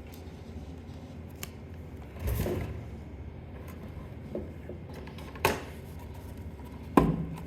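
Soundbar and its packaging being handled: a brief rustle about two seconds in, then two sharp knocks, the second and loudest near the end.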